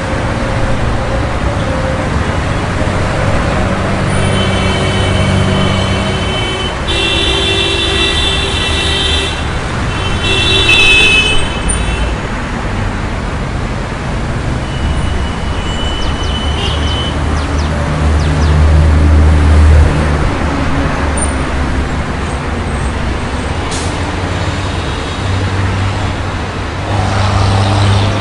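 City street traffic: steady road noise and engines of cars and buses going by, with car horns honking three times in the first half. A heavy vehicle's engine rumbles past about two-thirds of the way in, the loudest moment.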